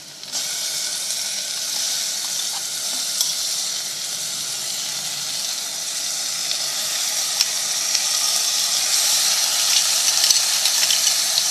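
Curd-marinated mutton sizzling loudly in hot oil with frying onions and whole spices. The sizzle starts suddenly as the meat goes in and grows a little louder toward the end, with a few light clicks.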